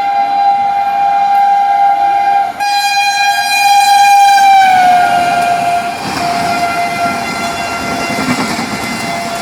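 Indian Railways WAP-7 electric locomotive's horn held in one long blast. The blast breaks briefly about two and a half seconds in, then grows louder, and its pitch drops around five seconds in as the locomotive passes at speed. After that the horn fades under the rumble of the coaches going by on the track.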